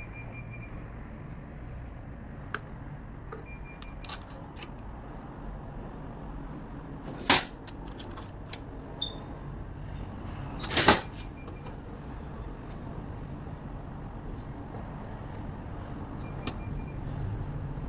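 Metal parts and tools being handled: scattered light clicks and clinks with two loud knocks, about seven and eleven seconds in, over a steady low hum.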